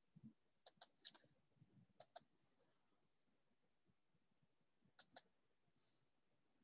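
Faint computer mouse clicks, mostly in quick double-clicks: a few about a second in, a pair at two seconds and another pair at five seconds.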